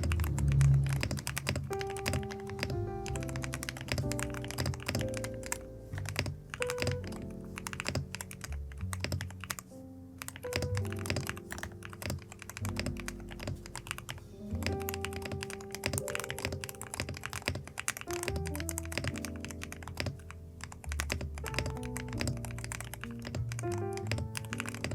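Rapid typing on a custom mechanical keyboard, a dense run of keystroke clicks, over background music.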